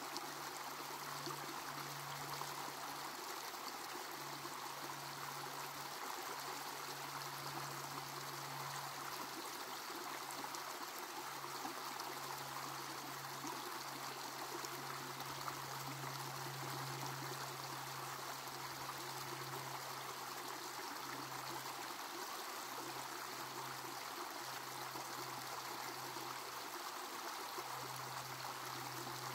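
Shallow rocky creek running over stones and ledges, a steady wash of flowing water. Underneath is a low hum that fades in and out several times.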